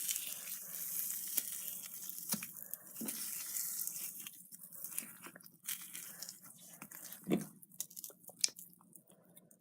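Slime being squished and stretched by hand, a sticky crackling noise for the first few seconds, then scattered sharp pops and clicks.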